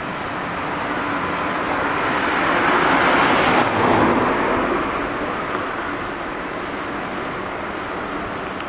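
Road traffic: a motor vehicle passing close by, its noise swelling to a peak about three to four seconds in and then fading. No siren is sounding.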